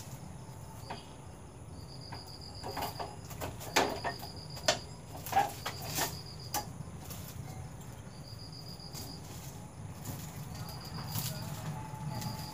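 Crickets chirping in short pulsed trills every couple of seconds over a low steady hum, with a few light knocks and rustles from hand work in the first half.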